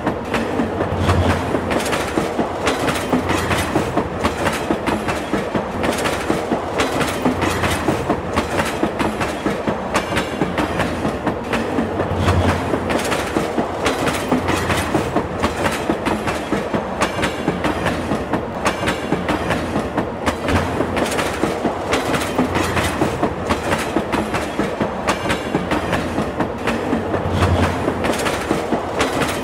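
Moving train's wheels clattering over the rail joints in a rapid, steady clickety-clack, with a low hum from the running train coming and going every few seconds.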